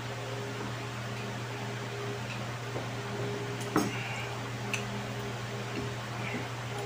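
Steady hum of an electric fan, with one sharp knock a little over halfway through as a mug is set down on the wooden table, and a fainter click shortly after.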